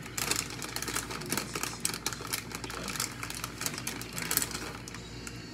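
Thin plastic packaging bag crinkling and rustling in the hands as it is squeezed and shaken, a fast, irregular run of crackles that stops shortly before the end.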